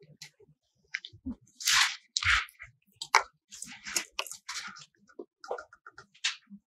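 Handling noise: a run of short, irregular crinkly rustles and scrapes.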